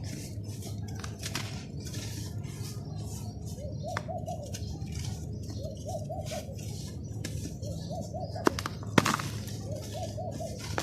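Crunchy sand being crumbled and crushed, giving crackly crunches with two sharp louder cracks about three-quarters of the way through. Behind it, a bird calls in short three-note phrases about every two seconds.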